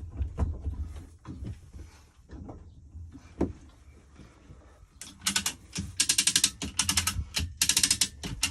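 Ratcheting hoist lifting a sailboat's inboard engine off its mounts: scattered knocks and clanks at first, then from about halfway in, repeated strokes of rapid ratchet clicking as the engine is raised.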